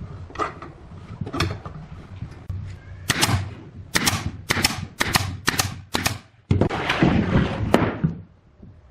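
A quick run of about eight sharp knocks, two to three a second, each ringing briefly. It is followed by a rougher noise lasting about a second and a half.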